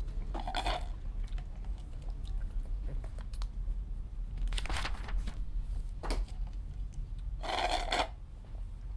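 Drink slurped through a straw from a paper cup, three short slurps about half a second each, over a low steady hum.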